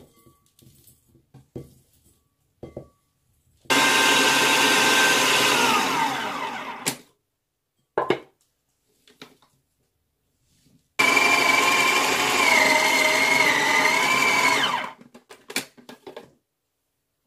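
Small electric food processor run twice in bursts of about three and four seconds, chopping a heavy oat, date and apple cookie dough. The motor's pitch falls away as the first run ends and wavers under the load during the second. Light knocks of the bowl and spatula come between the runs.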